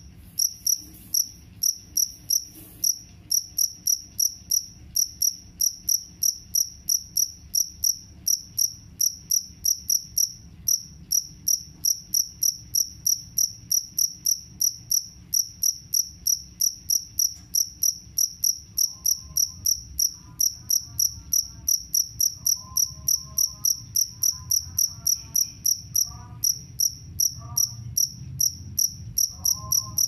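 Male two-spotted field cricket (jangkrik kalung) singing its calling song by rubbing its raised forewings together: a steady train of short, high-pitched chirps, two to three a second.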